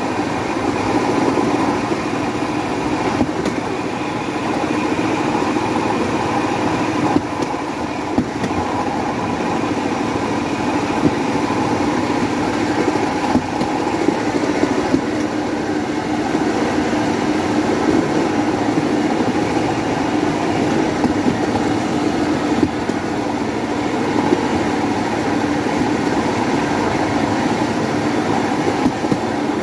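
Motorodillo, a homemade rail cart powered by a motorcycle engine, running along the railway track: a steady engine drone mixed with the rolling noise of its wheels on the rails, with a few brief knocks.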